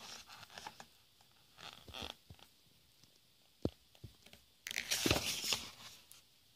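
Paper pages of a picture book being handled and turned: faint rustles and small clicks, then a louder paper swish about five seconds in as a page turns.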